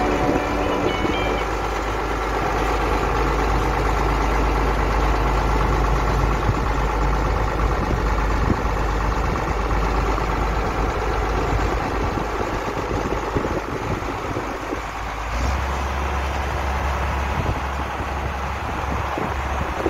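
Diesel tractor engine running steadily during sugar beet harvesting, its low note shifting about three-quarters of the way through.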